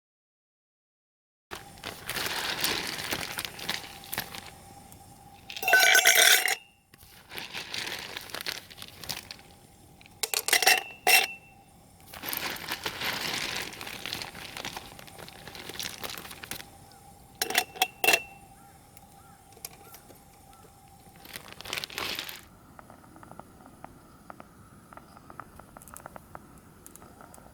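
Rustling and crinkling handling noises in bursts, with a few sharp metallic clinks, over a faint steady tone.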